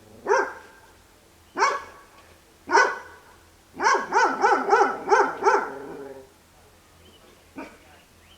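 A dog barking: three single barks a second or so apart, then a quick run of about six barks, then one faint bark near the end.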